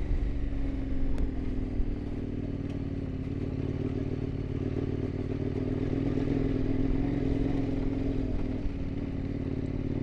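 KTM dual-sport motorcycle engine running at a steady cruising speed on a dirt road. A couple of sharp ticks come about one and three seconds in.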